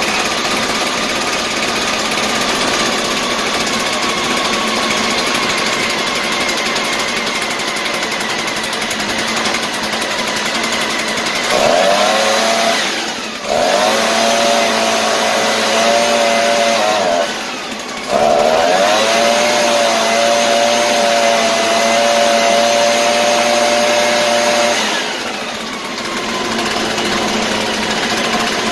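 Shindaiwa EB803 backpack blower's two-stroke engine idling for about ten seconds, then revved to full throttle three times, the last and longest for about six seconds, before settling back to idle. It holds full throttle without dying: the stall-on-acceleration fault is cured.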